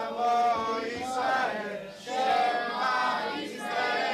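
Congregation of men and women chanting a Hebrew prayer together. Several voices sing in unison, in phrases of about a second with long held notes.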